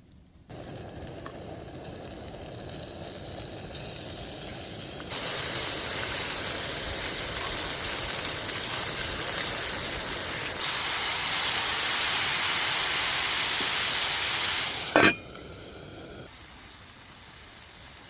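Food frying in a pan, a steady sizzle that turns much louder about five seconds in. Near the end a sharp metallic clink rings out, and the sizzle drops back quieter.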